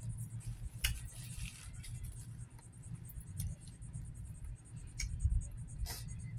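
Close-up eating sounds from someone chewing steamed blue crab and licking her fingers: scattered wet smacks and sharp clicks, about one a second. A steady low hum runs underneath.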